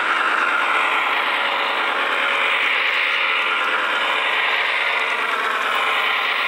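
Model CSX GE AC6000CW diesel locomotive rolling past close by, its wheels running on the rails and its drive gearing whirring in a steady mechanical clatter, with the intermodal cars following behind.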